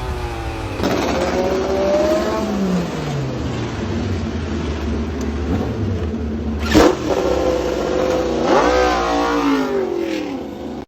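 MotoGP racing motorcycle engine revving hard, its pitch climbing and dropping as it goes through the gears, with sudden jumps where the sound cuts to another pass and a fresh rise in revs near the end.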